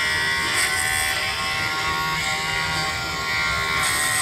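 Cordless Dremel Lite rotary tool running steadily at speed setting two, its sharpening bit grinding a chainsaw chain's cutter tooth: a steady high motor whine.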